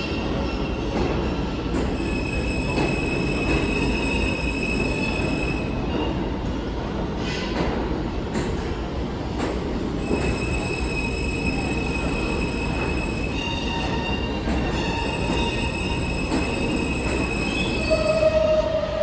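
New York City subway train running, its wheels squealing against the rails in high, steady tones for several seconds at a time over a constant rumble. A brief louder tone sounds near the end.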